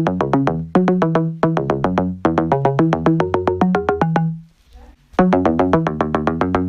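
Electronic synthesizer music of fast repeated notes over a low bass line, dropping out briefly about four and a half seconds in before starting again.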